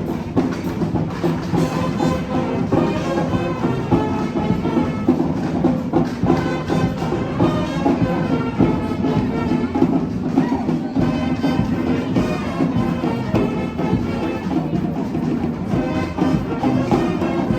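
Street brass band playing a tune, horns over drums keeping a steady beat.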